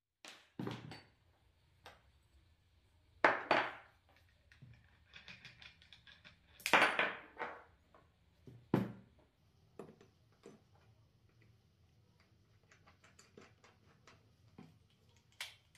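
An angle grinder and a grinding wheel being handled and set down on a workbench: a run of knocks and clatters, the loudest about three seconds in and around seven seconds, then light clicks and ticks later on as the wheel is fitted onto the grinder. The grinder is not running.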